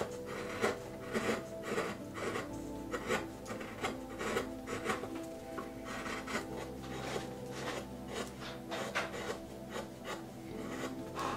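Hand carving chisel slicing into white pine in a run of short, scraping strokes, roughly two a second, paring chips off the edge of a carved scale.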